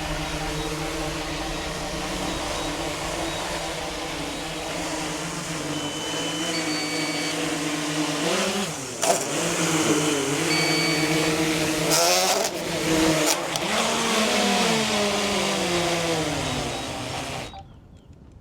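DJI Air 3S quadcopter's propellers whirring close by as it comes in to land, the motor pitch shifting up and down over the second half with a few short beeps, then cutting off sharply near the end as the motors stop.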